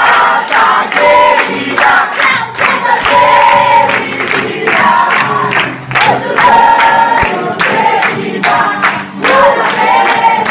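A group of people singing together loudly, clapping along in a steady beat.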